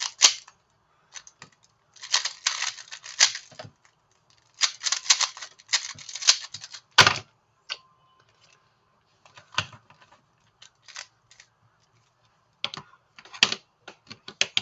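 Rapid bursts of light clicking and clattering, dense runs of clicks a second or two long broken by pauses, thinning to scattered single clicks in the second half. A faint short steady tone sounds about eight seconds in.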